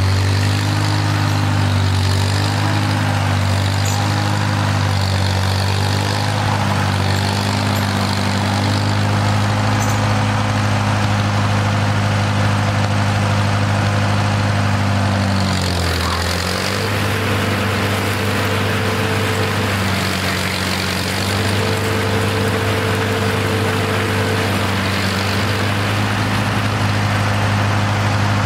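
Old tractor engine running steadily while pulling a mower deck through tall grass. Its pitch dips briefly about halfway through, then comes back up.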